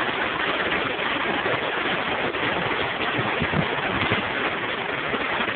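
Heavy rain and hail pelting down: a dense, steady hiss and patter of hailstones and raindrops striking, with a few sharper hits now and then.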